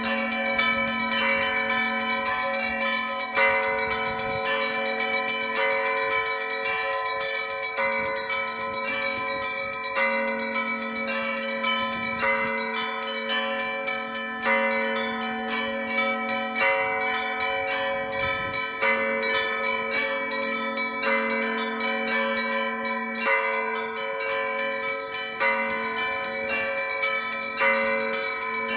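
Russian Orthodox church bells ringing a festive feast-day peal: many small bells struck in quick repeating patterns over the sustained ringing of larger bells, with a louder stroke every second or two.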